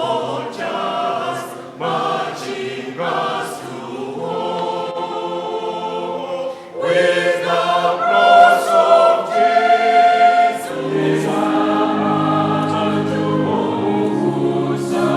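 A choir singing, many voices together in long held phrases with short breaks between them.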